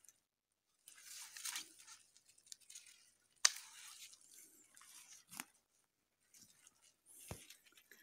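Pruning shears snipping spruce branches, with faint rustling of the boughs as they are handled. Two sharp snips, about three and a half and five and a half seconds in, and a soft low thump near the end.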